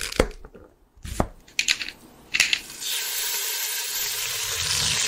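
Sound effects of an animated logo intro: several quick swishes and hits in the first three seconds, then a steady hiss.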